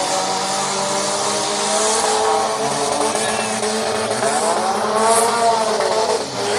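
Demolition derby car engines running and revving, their pitch rising and falling, with the clearest rev about two-thirds of the way through, over a steady din.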